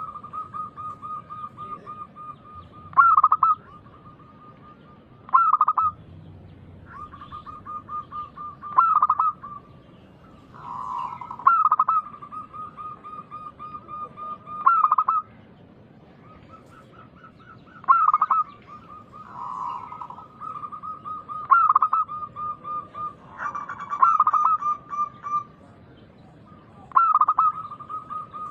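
Zebra dove (perkutut) singing over and over: each phrase opens with a loud note and runs on into a quick string of short, clipped coos, repeating about every three seconds.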